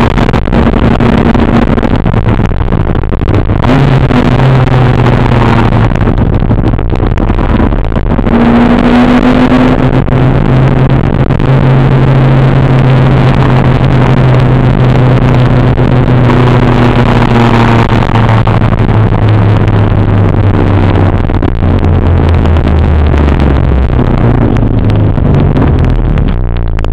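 Honda CRX with a swapped-in B18C 1.8-litre DOHC VTEC four-cylinder, heard loud from inside the cabin while driving. The engine note holds steady for a long stretch, then drops in pitch over the last several seconds as the car slows.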